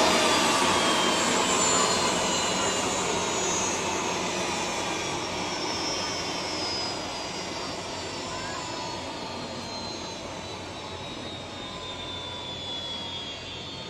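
Jet aircraft engine noise receding: a broad rushing roar that fades steadily, with thin whining tones slowly dropping in pitch.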